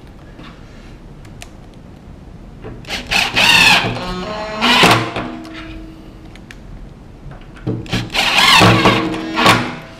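Cordless driver spinning two screws into a chipboard worktop, one after the other, to fix a tap brace in place. Two runs of about two seconds each, the motor whine shifting in pitch during each run.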